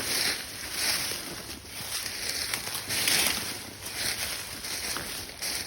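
Irregular swishing and crunching as people walk through dry leaves and brush.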